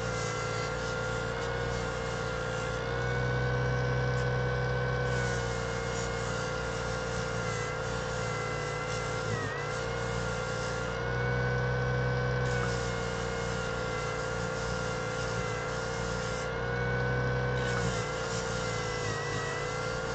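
Parkside 140-watt bench disc sander running with a steady motor whine while an epoxy resin piece is pressed against its 180-grit disc. A gritty sanding hiss swells and fades as the piece is pushed on, and the motor's pitch dips briefly under load about nine seconds in.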